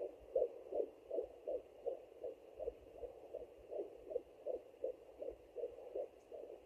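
Fetal heartbeat heard through a Sonoline B pocket fetal Doppler's speaker: an even, fast pulse of about 160 beats a minute.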